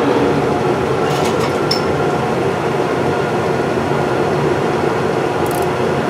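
Monarch 10EE metal lathe running with a steady hum, its chuck spinning an aluminum knob casting. A few light clicks about a second in and again near the end.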